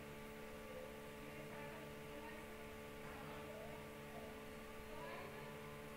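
Steady electrical mains hum, several steady tones over a faint hiss, with a few faint indistinct wavering sounds drifting in above it.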